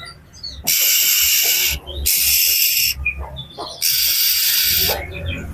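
Oriental magpie-robin (kacer) giving loud, harsh rasping calls: three hissing bursts of about a second each, with short chirps between them, typical of an agitated, scolding bird.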